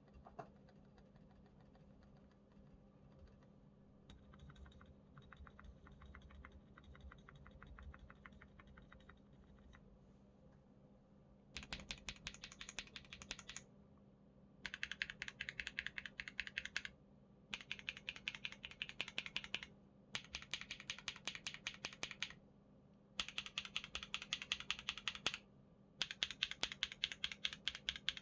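Monsgeek M1 mechanical keyboard with linear switches and a polycarbonate plate being typed on fast. Faint, quick key ticking for the first ten seconds, then runs of rapid typing about two seconds long with short pauses between them.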